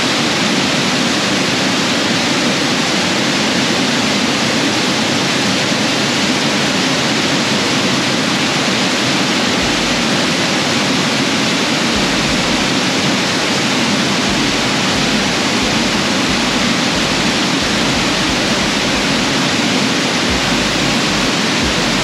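Waterfall in a rocky canyon: a loud, steady rush of falling water.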